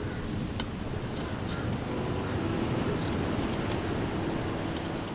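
Knife blade scraping the skin off a ginger root, a series of short, irregular scrapes.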